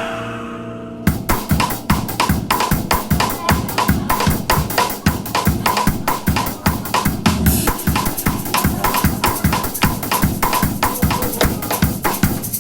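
Music: after a brief fade, a fast drum-kit beat with kick drum and snare hits starts about a second in and keeps up a busy, even rhythm.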